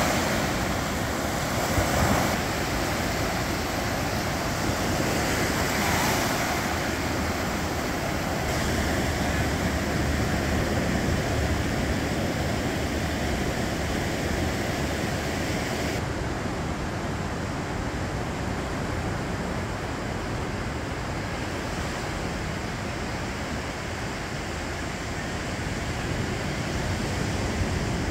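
Ocean surf washing onto a sandy beach, a steady rush of small breaking waves, with wind rumbling on the microphone.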